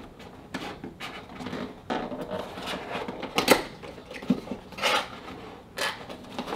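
A small cardboard box being opened and handled: scattered taps, scrapes and rustles of cardboard, with the loudest knock about three and a half seconds in.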